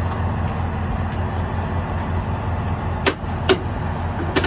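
Heavy diesel truck engine idling with a steady low rumble, and three sharp clanks in the last second and a half as tow chains are handled at the wheel-lift.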